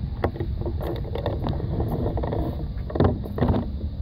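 Wind buffeting the microphone as a low, unsteady rumble, with scattered clicks and scuffs, louder around three seconds in.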